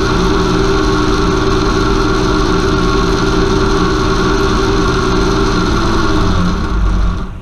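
Converted car alternator run as a brushless motor by a small 30 A drone ESC, driving a second alternator loaded to 30 A: a steady electric whine over a low mechanical drone. It winds down and cuts off about seven seconds in.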